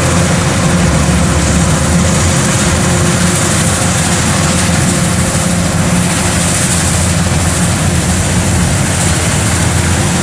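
Kubota DC-105X rice combine harvester running steadily while it cuts and threshes: a loud, even engine drone with a broad rush of machinery noise over it.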